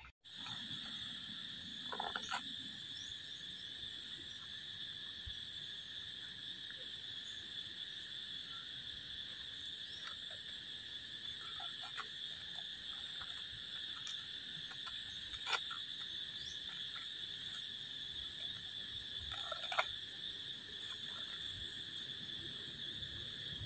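Steady, high-pitched insect chorus droning without a break, with a few short crackles now and then.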